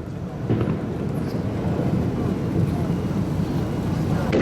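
Fireworks shells bursting: a continuous deep rumble of booms and their echoes, with a sharper bang about half a second in and another near the end.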